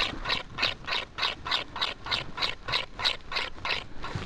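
Footsteps crunching through snow at a brisk walking pace, about three steps a second, stopping near the end.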